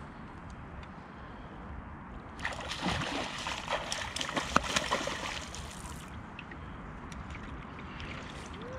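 A hooked pike thrashing and splashing at the surface while being played on a rod, for about three and a half seconds starting a little over two seconds in.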